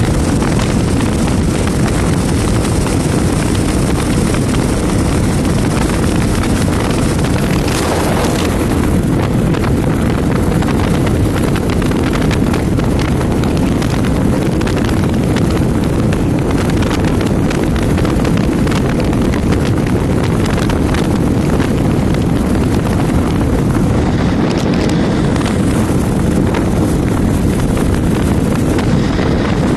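Steady, loud wind rumble on the microphone of a moving motorcycle, mixed with the bike's running engine and road noise.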